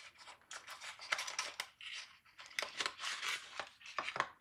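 Plastic packaging crinkling and clicking in short, irregular crackles while an NVMe SSD is handled.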